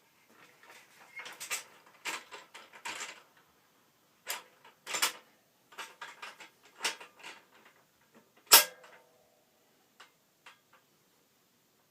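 Metal workshop tools being handled, here a bicycle headset press on the frame: irregular scrapes and clinks, then one sharp metallic clank about eight and a half seconds in that rings briefly.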